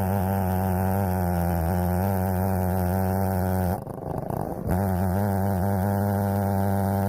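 Holzfforma Stihl 070-clone chainsaw, a big single-cylinder two-stroke on a 36-inch bar, running steadily at a low, even pitch while ripping a cherry log in an Alaskan chainsaw mill. About four seconds in, the sound drops away sharply for under a second, then comes back at the same pitch.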